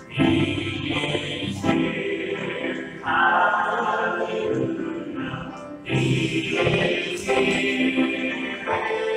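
Church congregation singing a hymn together, many voices at once.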